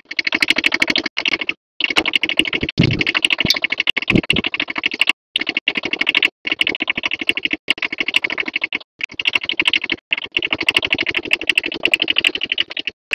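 Kubota B7000 compact tractor's small diesel engine running with a fast, even clatter, with a couple of brief low swells a few seconds in. The sound drops out abruptly several times.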